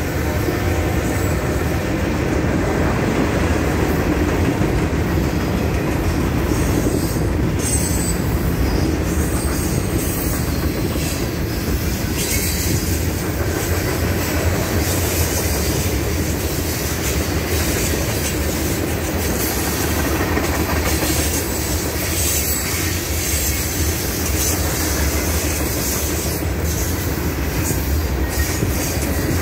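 Freight train cars (tank cars, boxcars and gondolas) rolling past close by, their steel wheels running on the rails with a steady, continuous rumble.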